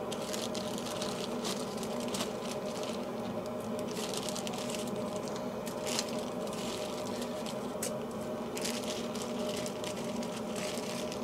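Plastic zip-top bag rustling and foil crinkling as raw chicken wings are coated in flour and laid on a foil-lined sheet pan. Many small clicks and crackles sit over a steady hum.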